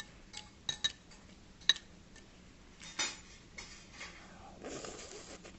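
Stainless steel chopsticks and spoon clinking against ceramic side-dish bowls: a few sharp, ringing clinks, the loudest about two seconds in. Softer eating noises follow as food goes to the mouth.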